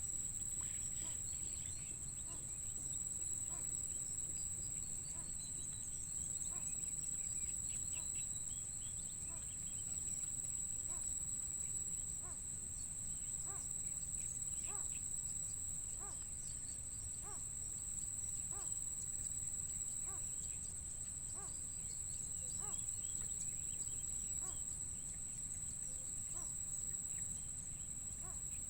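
Crickets or other insects trilling steadily and high-pitched, with faint short calls repeating about once a second and a low outdoor rumble underneath.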